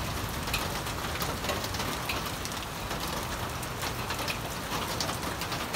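Steady rainfall, with frequent sharp taps of single drops landing close by.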